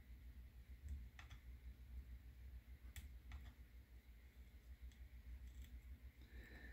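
A handful of faint, scattered small clicks of metal tweezers tapping and picking at the drone's frame while a small rubber pad is pried off, over a low steady hum.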